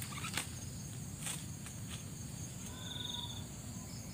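Steady high-pitched insect chorus, with a short pulsed insect trill about three seconds in. A few light snaps and rustles come through as cassava leaves are picked by hand.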